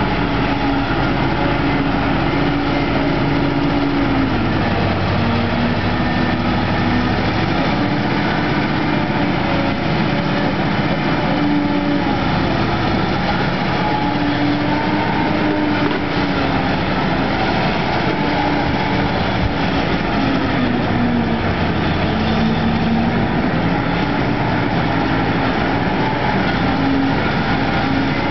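Caterpillar 992G wheel loader's big V8 diesel working under load as it lifts and dumps its bucket. The engine note rises and falls several times.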